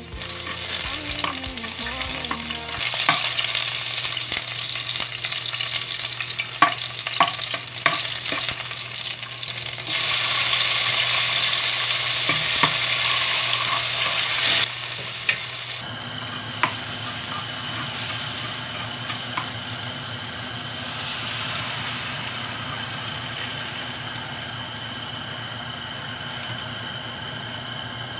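Garlic and meat sizzling in hot oil in a nonstick wok while being stirred, with the utensil clacking and scraping against the pan. The sizzle is loudest about halfway through, then settles to a quieter steady hiss.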